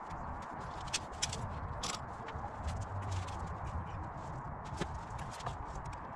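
Scattered light knocks and clicks of MDF panels being handled and a steel bar clamp being set and tightened across a joint, over steady low background noise.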